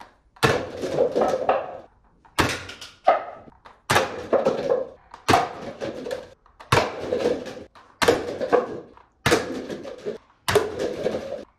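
Toy gatling-style foam-dart blaster firing eight shots, about one every second and a half. Each shot is a sharp snap trailing off into a clatter as darts hit and knock over stacked paper cups.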